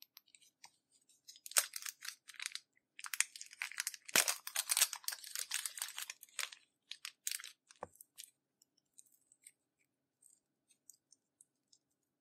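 Clear slime being squished and stretched by hand, giving a run of sticky clicks and crackles that is thickest in the middle and thins to scattered small clicks near the end.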